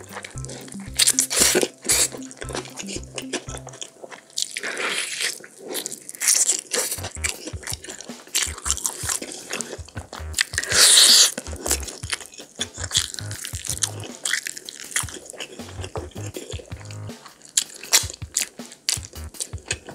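Close-miked eating of glazed BBQ pork ribs by hand: wet bites of meat pulled off the bone and chewing, with the loudest bites about a second in and again about eleven seconds in.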